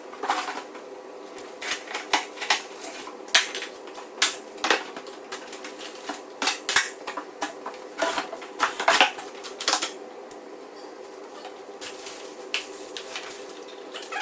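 Irregular clicks, clinks and knocks of hard objects being handled, over a steady hum.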